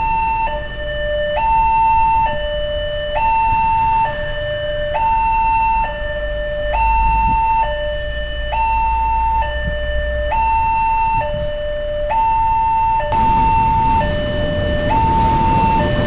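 Railway level-crossing warning bell sounding its electronic two-tone alarm, a higher and a lower note alternating, each held just under a second, while the barriers come down for an approaching train. Idling traffic engines rumble underneath, growing noisier about thirteen seconds in.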